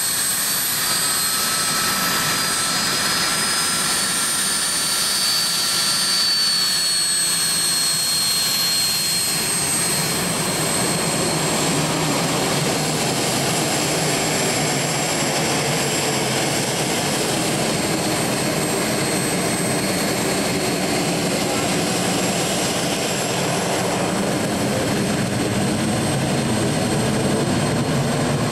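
Cessna A-37B Dragonfly's twin General Electric J85 turbojets running as it taxis past: a high steady turbine whine over a loud jet rush. The whine dips slightly in pitch about six seconds in, and the deeper exhaust rumble grows from about nine seconds on.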